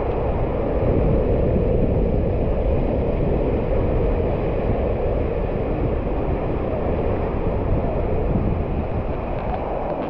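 Steady rushing and churning of water pouring down a water slide into its splash section, with low wind rumble on the microphone.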